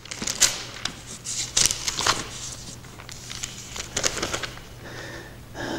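Paper rustling and soft clicks, with scattered short rustles about every second, like the pages of a book being leafed through, over a faint steady low hum.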